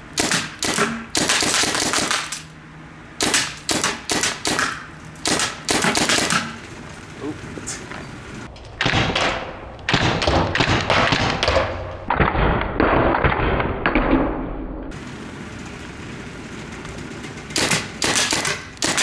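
Paintball gun firing in quick strings of sharp pops, several shots a second, with short pauses between strings, mixed with the thuds of paintballs hitting a plastic box fan.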